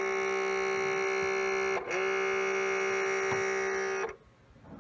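Tascam Portastudio 464 cassette deck giving a loud steady buzz when play is pressed. The buzz breaks off for an instant about two seconds in, starts again, and cuts off suddenly near the end. It is the strange noise of the deck's loading mechanism, as if something in it were stuck.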